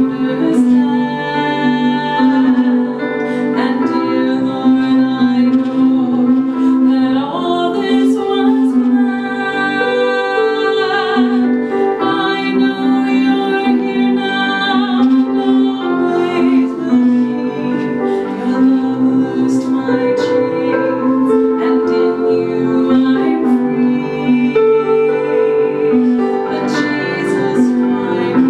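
Two women singing a Christian song as a duet, over sustained instrumental accompaniment.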